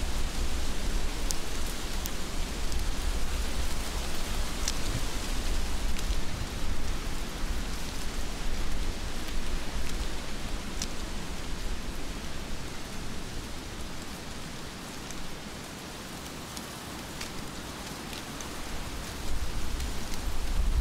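Steady heavy rain falling, with scattered sharp drops striking close by and a low rumble underneath. It eases somewhat past the middle and picks up again near the end.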